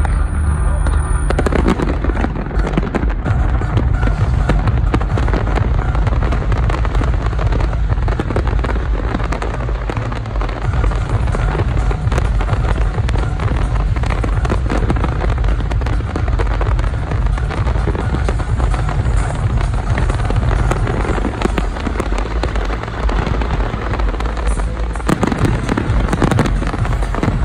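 Fireworks display: a dense, continuous crackling and popping of bursting shells. Loud music with a steady heavy bass plays underneath.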